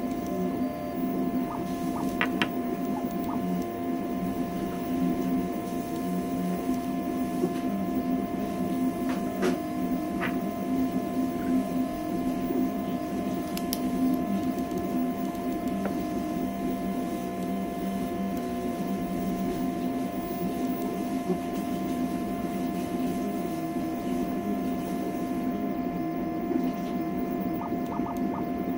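CoreXY conveyor-belt 3D printer mid-print: its stepper motors run in a busy, constantly shifting drone under a steady high whine, with a few faint ticks.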